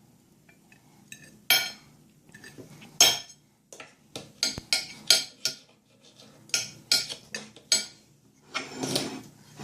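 A fork clinking and tapping irregularly against a dish, about a dozen sharp hits, the loudest in the first few seconds.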